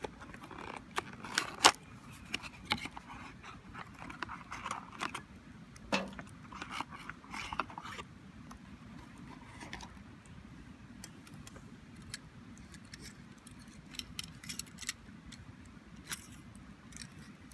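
Cardboard box rustling and sharp clicks as a small UCO Micro Candle Lantern is taken out of its packaging and handled. The rustling is busiest in the first half; after that there are only scattered clicks and taps from the lantern's metal and plastic parts.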